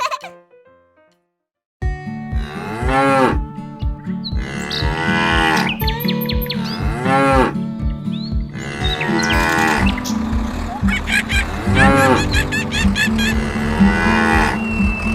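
Cattle mooing over and over, one long rise-and-fall moo about every two seconds, over a steady pulsing beat. It starts after a brief silence about two seconds in.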